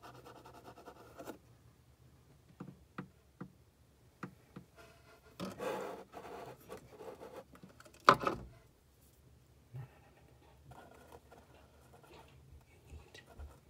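Faint close handling sounds, rubbing and scraping, with a few light clicks and one sharp knock about eight seconds in.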